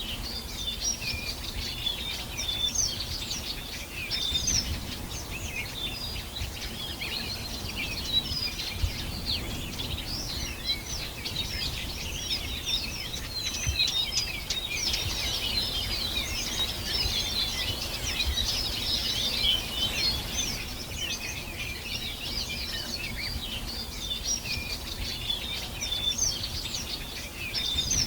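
Many birds singing and chirping together in a continuous dense chorus of short, quick calls, over a low background rumble.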